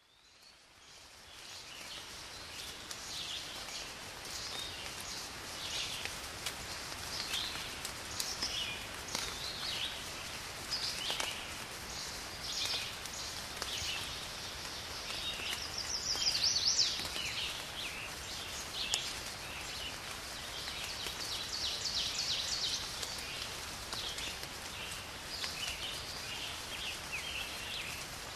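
Outdoor ambience of many birds chirping over a steady wash of noise, fading in at the start.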